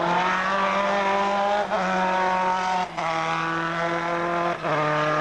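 Formula 3 race car's four-cylinder engine running at high revs as it drives past. The note breaks off briefly three times, nearly two seconds in, about three seconds in and near the end, each time coming back at a lower pitch: upshifts.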